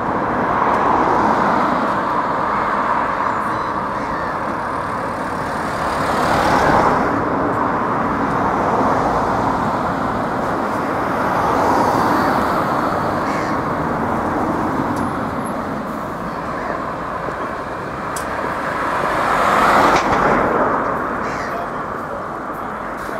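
Road traffic and bus engines: a steady vehicle noise that swells and fades several times as vehicles pass, loudest near the end as a touring coach pulls in.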